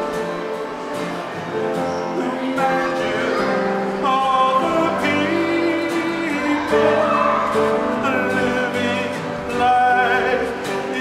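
Voices singing a song with instrumental accompaniment, in long held notes that step from pitch to pitch.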